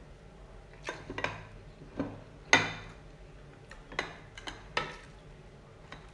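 Scattered sharp clinks and clicks of ceramic dishes being touched and knocked while food is handled at the table, about nine in all. The loudest clink comes about two and a half seconds in and rings briefly.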